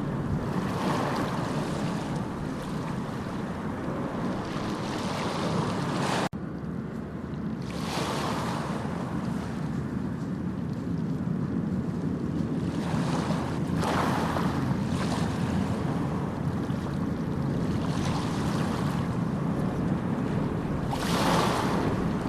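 Sea waves breaking and washing in, a steady rush of surf that swells with each wave about every six or seven seconds. There is a sudden brief dip in the sound about six seconds in.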